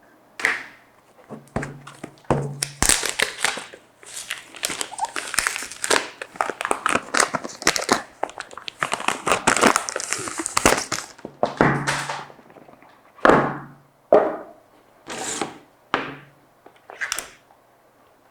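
Packaging being handled during an iPhone unboxing: a dense run of rustling and crinkling wrap and paper, mixed with knocks and thunks of the box. After about 12 s it thins to a handful of separate short scrapes and knocks.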